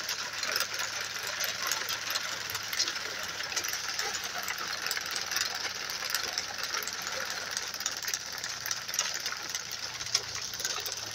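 1920s McCormick-Deering corn binder running through standing corn, its chains, packers and gearing making a steady, rapid clicking clatter, with the towing vehicle's engine running low underneath.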